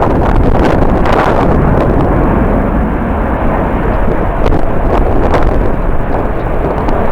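Strong wind buffeting the microphone: a loud, continuous rumble with gusty thumps and swells.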